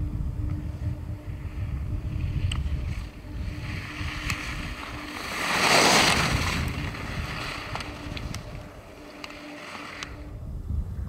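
Skis carving across hard snow as a slalom skier passes close, a swoosh that swells and fades, loudest about six seconds in, over wind rumbling on the microphone. A few short sharp ticks come and go.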